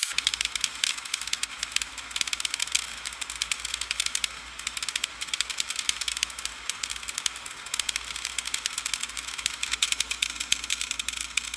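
Freezing rain on ice-coated tree branches: a dense, steady patter of small sharp ticks and crackles, with a faint low rumble underneath.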